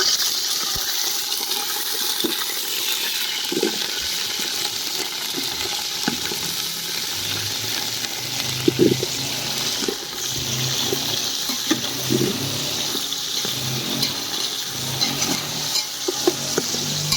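Potatoes frying in hot oil in a pan, a steady sizzle with the occasional click and scrape of a spoon stirring them.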